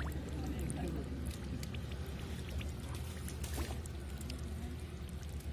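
Water splashing and pouring, with scattered small clicks and a steady low rumble.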